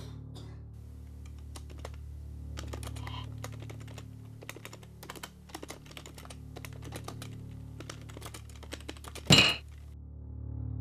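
Typing on a computer keyboard: a run of irregular key clicks over several seconds, then a single loud bang near the end.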